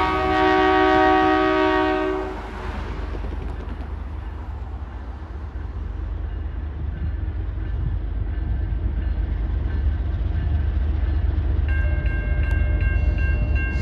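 Locomotive air horn sounding a chord of several pitches that cuts off about two seconds in. The train's low rumble follows and slowly grows louder.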